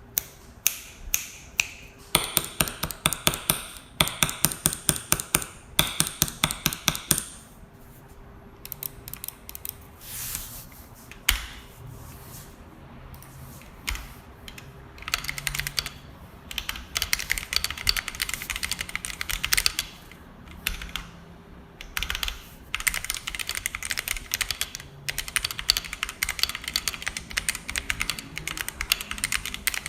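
Typing on a Vortex VX5 Pro 60% mechanical keyboard in an aluminium case, fitted with stock Outemu red linear switches and XDA PBT keycaps. It opens with a fast, even run of ringing keystrokes. Sparser, quieter presses follow in the middle, then bursts of rapid typing near the end.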